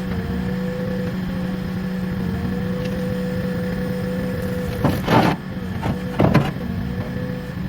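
Engine running steadily at idle with an even hum, broken by two short scraping bursts about a second apart near the end.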